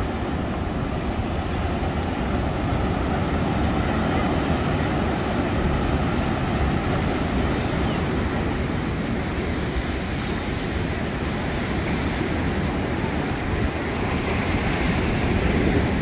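Strong wind buffeting the microphone over surf breaking on a sandy beach: a steady, low rumbling noise with no distinct events.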